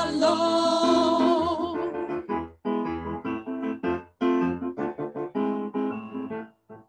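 Two women's voices hold the final sung note of "shalom" with vibrato, and it ends about two seconds in. An electronic keyboard then plays a short instrumental interlude of short, detached chords.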